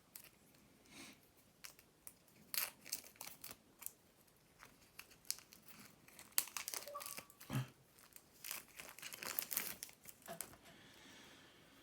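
Plastic shrink-wrap on decks of game cards crinkling and tearing as it is pulled off, in irregular crackles.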